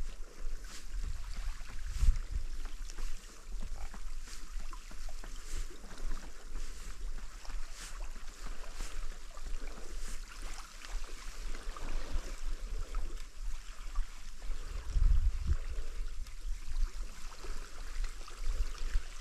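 Wind buffeting the microphone with a deep, gusting rumble, strongest about two seconds in and again near the end, over sea water washing against rocks.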